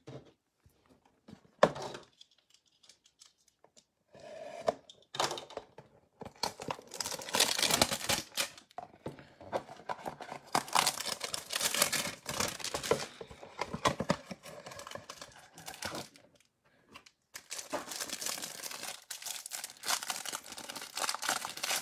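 A cardboard hanger box of basketball trading cards being torn open by hand, then the clear plastic wrapper crinkling as it is peeled off the stack of cards. A single sharp knock comes just under two seconds in.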